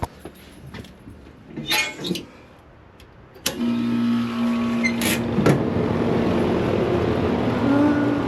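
Air-conditioner condenser unit switching on with a click about three and a half seconds in, then running steadily with a hum: compressor and fan back in service after the failed capacitor was replaced. A short rustle and a few light clicks come before it.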